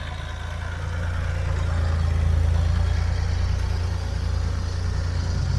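Engine of a piece of farm equipment running steadily at idle. It grows a little louder about a second in.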